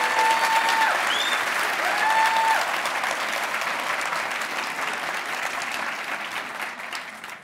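A theatre audience applauding after a punchline, with two long high calls rising out of the clapping in the first few seconds. The applause dies away near the end.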